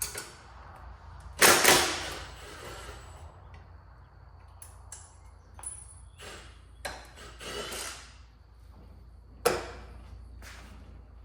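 Hand tools and metal hardware clanking and clicking during motorcycle disassembly: a string of separate knocks, the two loudest about a second and a half in and near the end.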